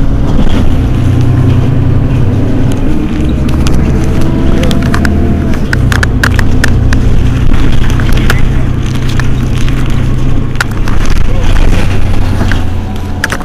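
Mercedes-Benz Citaro city bus's rear-mounted diesel engine idling steadily at a standstill, a loud low hum, with a scattering of sharp clicks in the second half.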